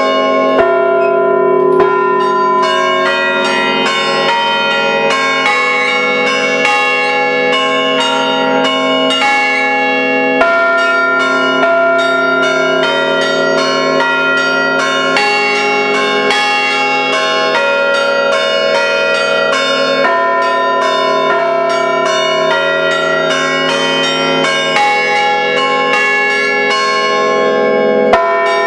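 Five church-tower bells sounded by hand through rope pulls, playing a traditional peal. The strikes come quickly, several a second, with the tones ringing on and overlapping.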